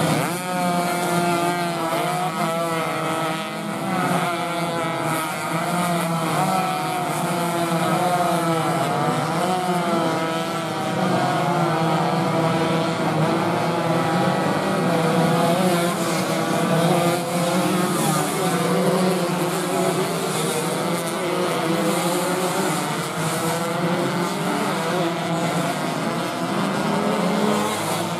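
Several two-stroke 125 cc underbone racing motorcycles at full racing revs, their overlapping engine notes rising and falling in pitch as the riders shut off and open the throttle through the corners.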